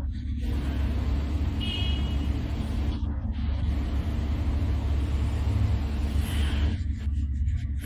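Heavy cargo truck's diesel engine running at low speed as the truck creeps around a hairpin bend: a steady low rumble. A brief high squeal comes about two seconds in.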